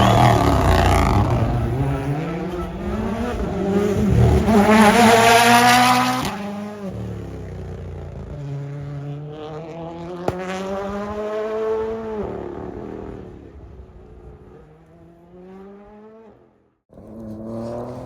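A rally car's engine passes at full power, then accelerates away, rising in pitch through several gear changes and fading into the distance. Near the end the sound cuts abruptly to another car's engine.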